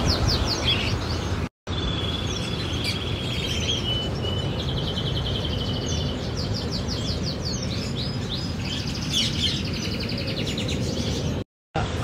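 Many small birds chirping and trilling over one another in an aviary, with quick repeated high notes over a steady background noise. The sound drops out briefly twice, about a second and a half in and near the end.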